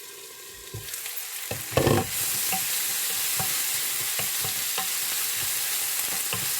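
Onion, tomato and ginger-garlic paste frying in oil in a pan: quieter at first, then a knock about two seconds in, after which a steady sizzle.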